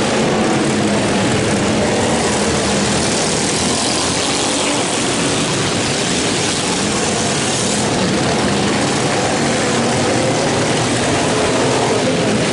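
Several racing lawnmower engines running hard at once, a buzzing drone whose pitch keeps rising and falling as the mowers lap the dirt track.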